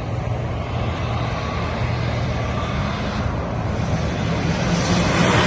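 A car engine running steadily, its note rising slowly, with a rush of noise swelling louder near the end.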